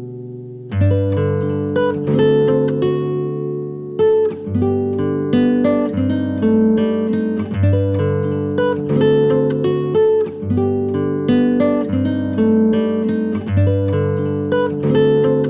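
Background music: acoustic guitar picking a steady run of plucked notes and chords.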